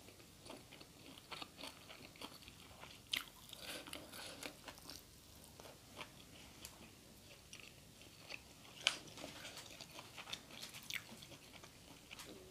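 Faint close-up eating sounds: a person chewing and biting food, with crisp crunches and small wet mouth clicks scattered through, the sharpest crunches about three seconds in and again near nine seconds.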